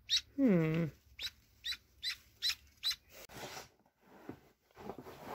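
Magpie ducklings peeping: short high peeps, each sliding down in pitch, about two a second through the first three seconds. About half a second in comes a brief low tone that falls in pitch, and from about three seconds in there is rustling.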